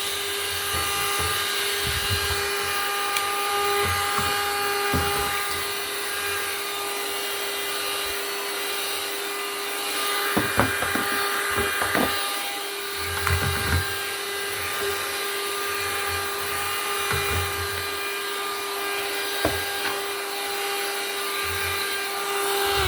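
Small rechargeable car vacuum cleaner running steadily with a constant high whine and hiss, with a few short knocks now and then.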